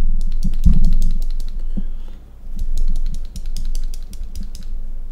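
A smartphone in its case being twisted sharply back and forth in the hand, giving a dense run of irregular clicks and rattles with dull handling thumps, strongest in the first second and again about three seconds in, with a short lull between.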